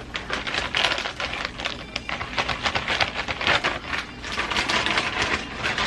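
Rapid, irregular crackling and clicking from the seafood boil being handled as the pork sausages are picked out.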